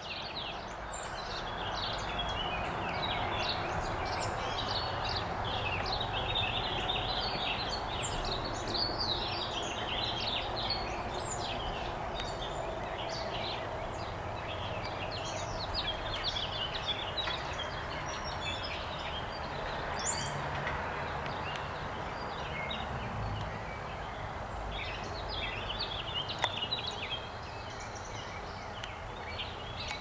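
Outdoor ambience of several birds chirping and singing over a steady background noise, with a high call that drops in pitch repeating every few seconds.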